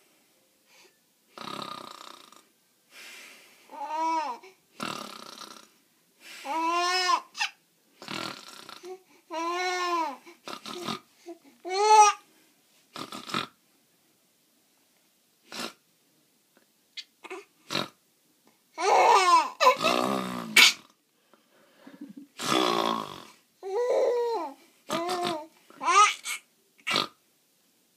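A person playing at snoring: noisy fake snores and snorts in uneven spurts, mixed with short squealing calls that rise and fall in pitch and bursts of laughter, with pauses between.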